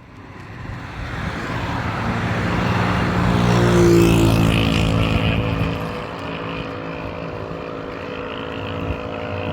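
A vehicle engine drawing near, loudest about four seconds in, then running on steadily.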